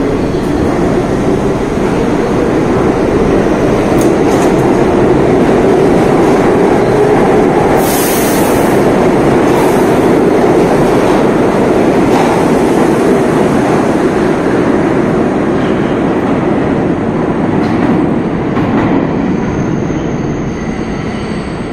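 R62A subway train pulling out of an underground station and accelerating away: a loud, steady rumble of wheels on rail with a brief high hiss about eight seconds in, easing slightly near the end as the last cars pass.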